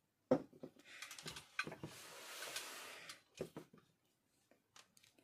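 Faint handling sounds: a few light knocks and clicks with about two seconds of soft rustling in the middle, as a small mains transformer and its wires are moved and set down on a table.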